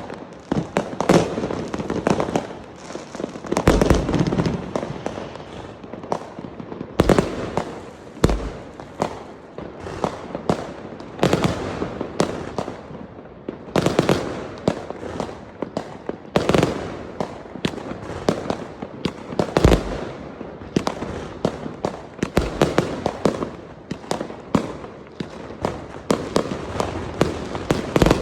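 Fireworks going off in a continuous barrage: sharp bangs of aerial shells in irregular clusters, with crackling between them and the volley swelling and easing every few seconds.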